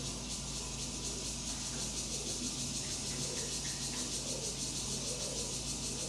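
Steady high-pitched hiss with a fine, even flutter, over a constant low hum.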